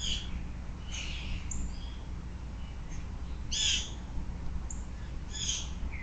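Wild birds calling: four short, harsh calls, the loudest about three and a half seconds in, over a steady low hum.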